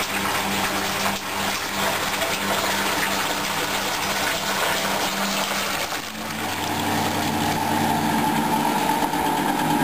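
Polar Westa-85 front-loading washing machine running: water swishing in the turning drum over a steady hum. About six seconds in this gives way to a steadier motor whine.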